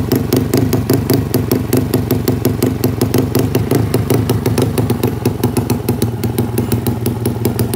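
Single-cylinder engine of an underbone road-race motorcycle idling loudly through its race exhaust, with a rapid, even beat.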